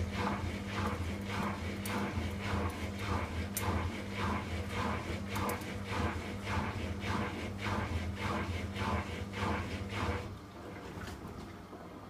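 Hoover WDYN 11746 PG8 washer-dryer drum turning a load of shirts and jumpers on a drying cycle: a steady motor hum with a soft whoosh of clothes dropping about two to three times a second. Near the end the tumbling stops and it falls quieter.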